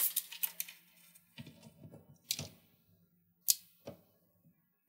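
Plastic clicks and taps from a Lenovo P52 laptop's chassis and display assembly being handled and fitted during reassembly: a short clatter at the start, then a few separate sharp clicks.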